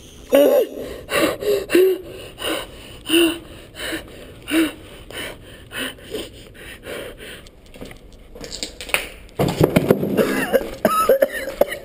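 A person panting hard, with short voiced gasps about one and a half times a second, the breathing of someone frightened and out of breath. About nine and a half seconds in, a louder stretch of scuffing and jostling movement noise takes over.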